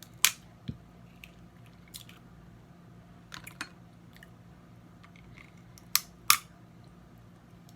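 Snow crab leg shells snapping and cracking by hand: a handful of sharp cracks, the loudest just after the start and two close together about six seconds in, with smaller clicks between, over a faint steady low hum.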